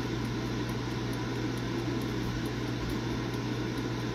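Air fryer running, its fan blowing steadily with a low hum.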